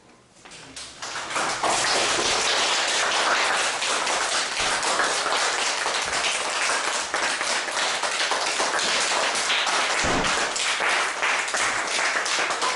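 A class of young children applauding, clapping their hands together, starting about a second in and keeping on steadily, with a brief low thump about ten seconds in.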